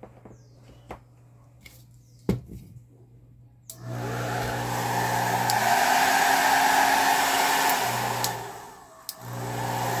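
A few clicks as the switch is handled, then about four seconds in a GAMA Bloom hair dryer starts up and runs with a loud whirring blower, its hum changing partway through. It dies away briefly near the end and starts again. The dryer now runs after its bent speed-switch contacts were straightened, so the repair has worked.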